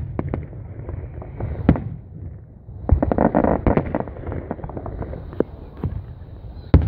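Aerial fireworks shells bursting: a string of sharp bangs and pops, a dense run of them about three seconds in, and a loud bang near the end.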